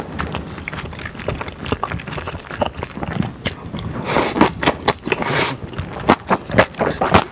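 Close-miked eating: wet, chewy mouth clicks as a mouthful of spicy yakisoba with thick glass noodles is chewed. Two longer, hissing slurps come about four and five seconds in as noodles are drawn into the mouth.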